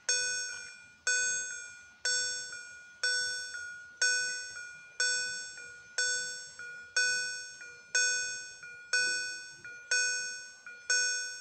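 Railway level crossing warning bell striking about once a second, each bright chime ringing out and fading, with a softer second strike just after it. It is the crossing's warning of an approaching train while the barriers come down.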